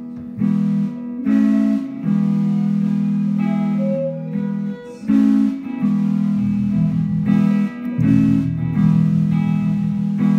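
Live band playing an instrumental passage: electric guitars playing chords over drums, with the low notes and chords changing about once a second.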